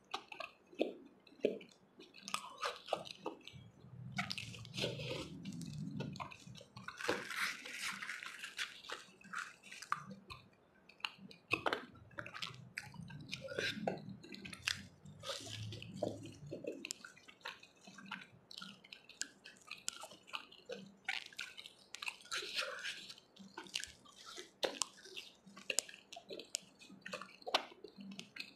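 Close-up wet chewing and mouth smacks of a person eating chickpea curry with puri, with many irregular short clicks.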